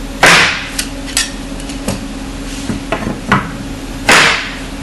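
Two loud knocks about four seconds apart, with lighter clicks and taps between them, as spring steel clips are pushed into the slots joining ¾-inch plywood crate panels.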